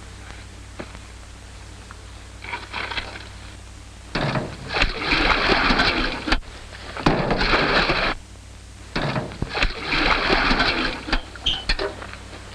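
Water poured from buckets into a farm water tank, splashing and rushing in three pours about four, seven and nine seconds in, over a steady low hum of an old film soundtrack.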